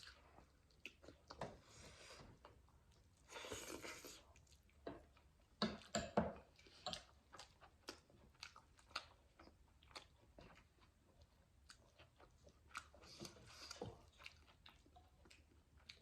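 Faint close-miked chewing and mouth sounds of people eating a home meal of rice, dal, paneer, mustard greens and bitter gourd, with scattered small clicks and a few brief louder smacking or slurping bursts.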